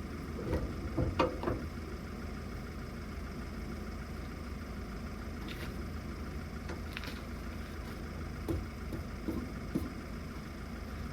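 A vehicle engine running steadily, with a few short knocks and clunks in two clusters, about a second in and again near the end.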